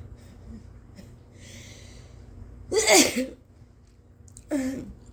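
A woman's induced sneeze, loud and forceful with voice in it, comes a little before the middle; a second, shorter and quieter sneeze follows about a second and a half later.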